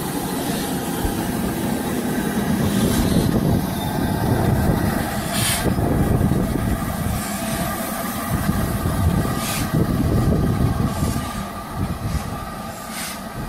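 Steam train running with a steady low rumble, and four short hisses spread through it.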